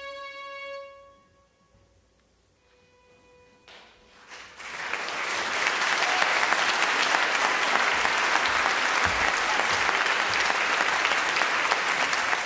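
A held musical note fades out, followed by a brief hush; about a third of the way in, audience applause starts and builds to steady clapping.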